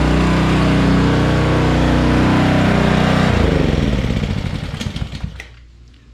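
Honda gas pressure washer engine running steadily, then winding down a little past three seconds in, its pitch sliding down as it coasts to a stop.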